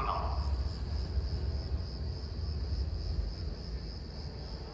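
Crickets chirping in a steady, high, even trill over a low, constant rumble.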